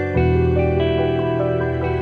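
Background music of slow, held chords; a new chord with a low bass note comes in just after the start.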